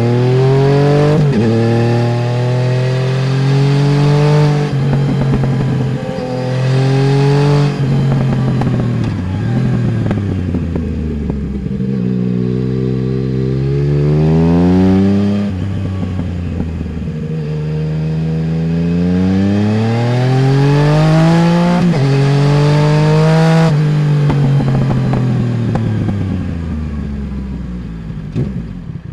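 Yamaha Tracer 900 GT's three-cylinder engine through a full Roads Italia aftermarket exhaust, pulling hard up the revs with quick drops at gear changes, then easing off into long stretches of falling revs as the throttle closes. The pattern repeats several times: accelerating out of bends and engine braking into them.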